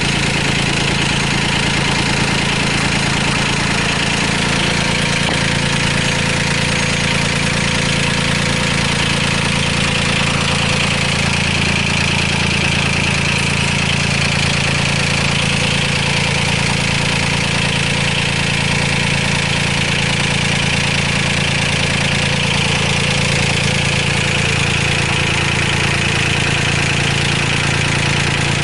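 The engine of a Komatsu WA10 wheel loader running steadily at idle.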